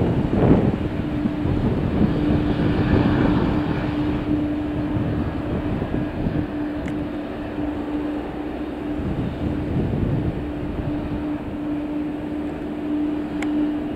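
Aircraft engine noise from an airliner at the airport: a steady rushing sound with a constant low hum, dipping slightly in the middle and swelling again near the end.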